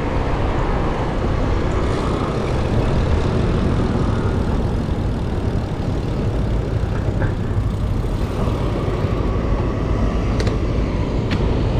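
Steady wind rumble on the microphone while riding a bicycle along a road, mixed with road noise. A couple of faint clicks near the end.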